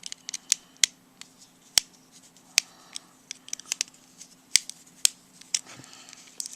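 Irregular sharp clicks and ticks of small plastic parts and a tool as a flip phone is being taken apart.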